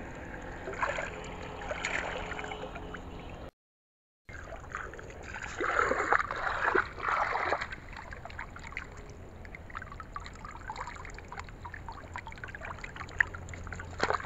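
Shallow muddy water sloshing and trickling as men wade and work a fine-mesh fence net (moi jal) through it, with many small splashes and drips and a louder stretch of splashing about six to seven seconds in. The sound cuts out completely for under a second about four seconds in.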